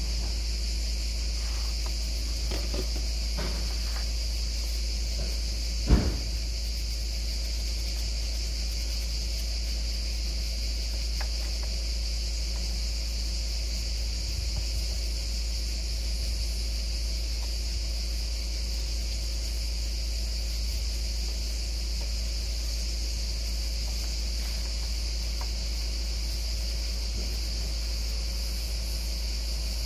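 Steady high-pitched insect chorus over a constant low rumble, with a few faint knocks and one sharp knock about six seconds in.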